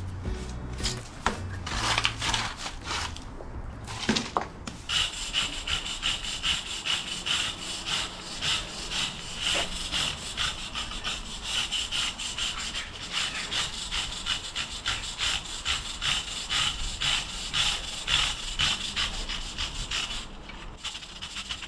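Hand wire brush scraping across paving joints in quick repeated back-and-forth strokes, clearing out moss, with a short pause about four seconds in.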